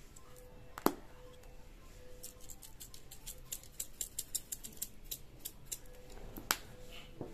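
Chilli flakes shaken out of a plastic shaker jar: a run of quick, light ticks and rattles, with a sharper knock about a second in and another near the end.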